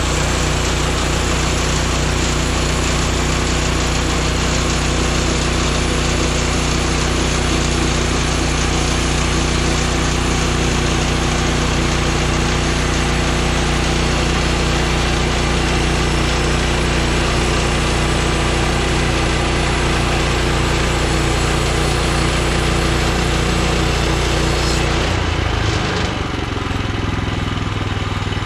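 Woodland Mills HM126 portable band sawmill running with its gas engine at a steady speed, engine and blade noise holding even. About three seconds before the end the sound thins out and the engine note shifts, as the load changes.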